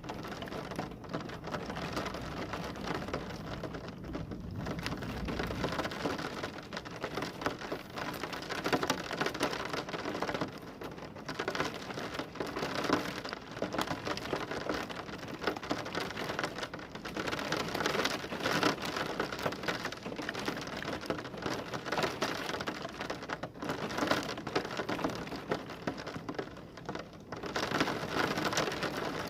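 Heavy rain pouring steadily, its hiss rising and falling, with a low rumble of thunder in the first few seconds.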